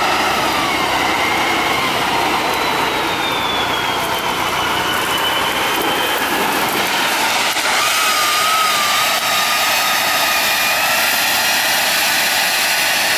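Tatra 813 8x8 truck's engine running under load off-road, with a high whine over the engine noise that slowly rises and falls in pitch.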